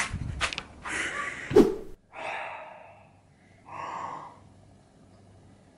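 Rustle of a handheld camera being handled, with a sharp knock about one and a half seconds in. Then a woman gasps in dismay, twice, the second gasp shorter and sharper, about four seconds in.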